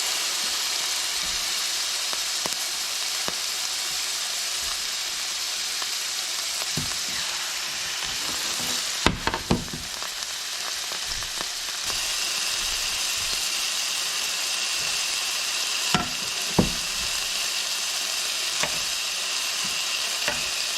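Seasoned walleye fillets frying in olive oil in a hot pan: a steady sizzle. A few sharp knocks come about nine seconds in and again around sixteen seconds.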